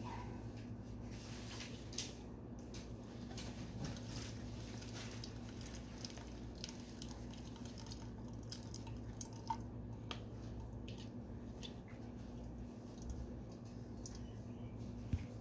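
Blended tomato pulp being pressed through a mesh strainer with a plastic tamper: soft squishing and scraping, with juice dripping through and a few light clicks of the tamper against the strainer.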